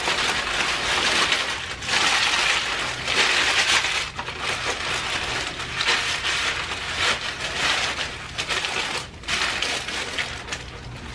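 Subway sandwich paper wrappers crinkling and crackling as they are unwrapped and folded back by hand, a steady run of rustling with a few brief pauses.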